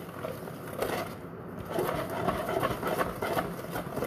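Hand wire whisk beating cake batter in a bowl, with irregular clicks of the wires against the bowl.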